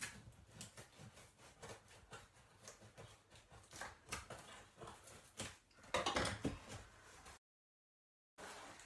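Scissors snipping and scraping through packing tape on a cardboard box, with taps and rustles of the cardboard being handled. A louder rasp comes about six seconds in, then about a second of dead silence before more cardboard handling.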